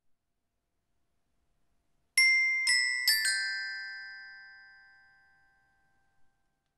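Glockenspiel playing four struck notes starting about two seconds in, the last two in quick succession, ringing on and dying away over about three seconds.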